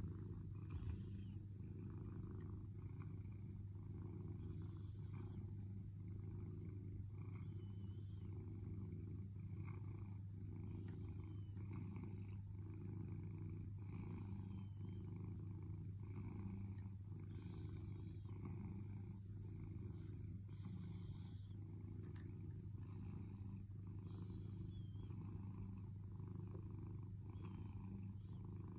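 Domestic cat purring steadily, a low continuous rumble that swells and eases in a regular rhythm with its breathing.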